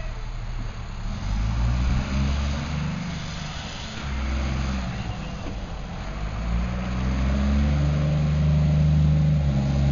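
Garbage truck's diesel engine accelerating as the truck turns and pulls away, its pitch climbing and dropping back a couple of times and loudest in the last few seconds.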